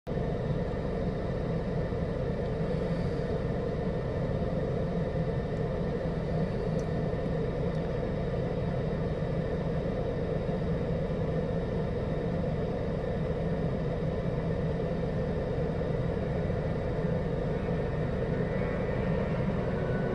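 Steady low rumbling background noise with no distinct events. It is even throughout, with most of the sound in the low range.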